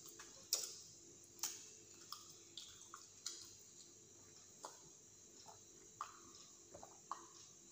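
Faint mouth sounds of someone eating close to a clip-on mic: scattered wet clicks and smacks, a dozen or so spread irregularly, about one a second.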